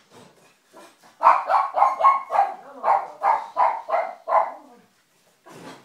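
Dog barking: a few faint barks, then from a little over a second in a fast run of about ten loud, sharp barks, roughly three a second, stopping shortly before the end.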